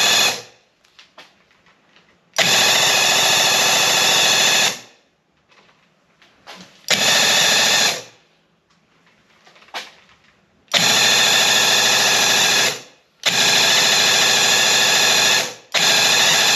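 Graco Ultimate QuickShot airless paint sprayer's pump buzzing in bursts as the gun trigger is pulled and released while it sprays primer. A short burst ends just after the start, then five more follow, each lasting about one to two and a half seconds, with the last two nearly back to back.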